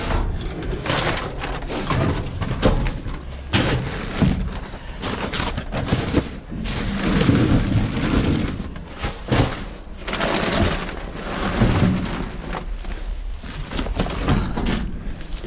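Plastic, bubble wrap, paper and cardboard rustling and crinkling as trash in a dumpster is rummaged through by hand, with irregular knocks and crunches throughout and a low rumble underneath.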